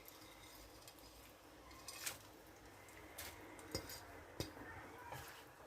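Faint clinks and taps of a cooking utensil against a pan, about five spread over a few seconds, as noodles are worked into the broth.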